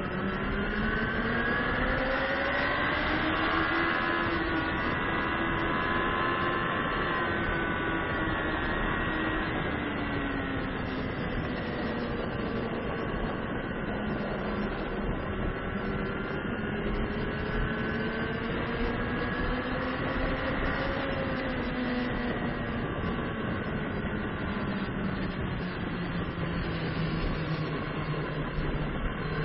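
Sport motorcycle engine at racing speed, heard from an onboard camera, over a constant rush of wind noise. The engine pitch climbs over the first few seconds, eases off, climbs again past the middle and drops near the end.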